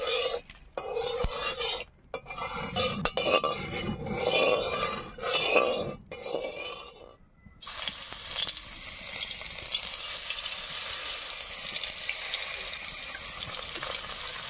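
A metal spatula scraping and stirring in a metal wok of hot oil, in uneven strokes. About halfway in, pieces of snake fish go into the oil and it starts a steady sizzle of frying.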